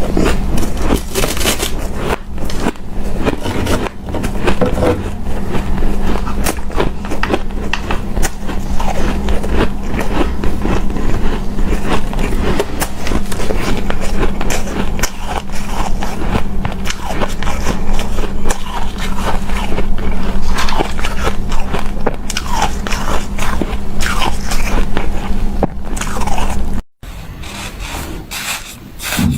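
Close-miked crunching of snowy shaved ice being scooped and chewed: a dense, continuous run of crackling crunches and scrapes. It cuts off abruptly near the end and resumes more quietly.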